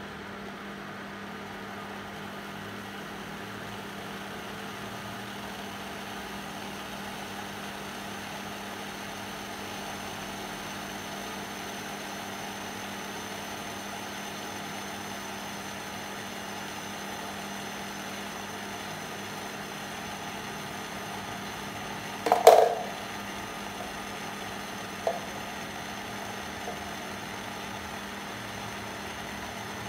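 Philips induction cooktop running under a steel pot of water heating for the boil, with a steady fan hum and a constant low electrical drone. About two-thirds of the way through there is one sharp knock, the loudest sound, followed by two small clicks a few seconds later.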